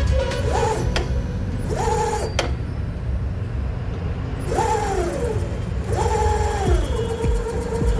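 Ola S1 Pro electric scooter's drive motor whining as the rear wheel is run up and slowed again four times, each time rising quickly in pitch, holding, then falling away, with a click about two and a half seconds in. This is a test that the rear wheel and the freshly fitted rear brake pads work. Near the end the whine settles into a steady hum.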